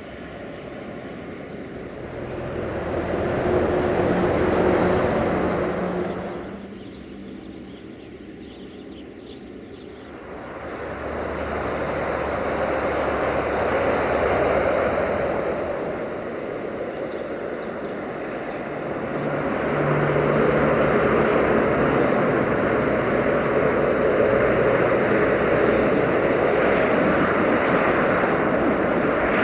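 Diesel locomotive engine droning as it approaches, swelling and fading, then steadier and louder over the last ten seconds.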